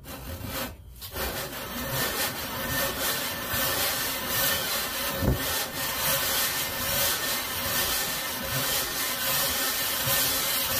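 Aluminium Briggs & Stratton 5 hp engine block rubbed by hand on sandpaper on a flat bench, a continuous scraping rasp of the cylinder deck against the abrasive. The deck is being lapped flat because it was poorly machined and warped, so that the head gasket will seal.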